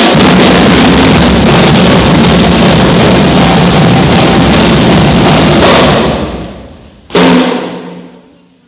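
Marching drums played loudly, stopping about six seconds in and echoing away in a gymnasium, then one last loud drum hit about a second later that rings out in the hall.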